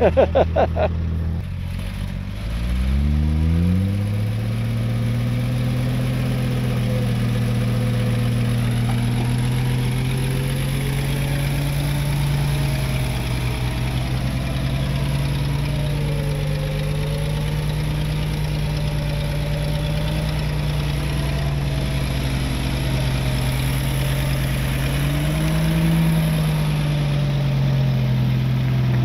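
A vehicle's engine running under way, its pitch climbing for a couple of seconds near the start as it speeds up, then holding fairly steady with small rises and falls.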